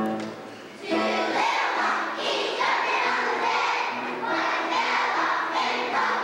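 A group of children singing together, coming in about a second in over instrumental accompaniment.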